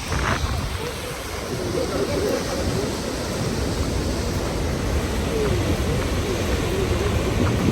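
Wind buffeting the microphone over the steady rushing noise of a large waterfall.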